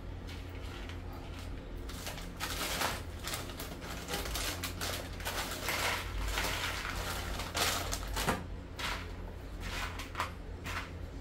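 Plastic food packaging crinkling and rustling in the hands, with irregular clicks and crackles, heaviest in the middle stretch, over a steady low hum.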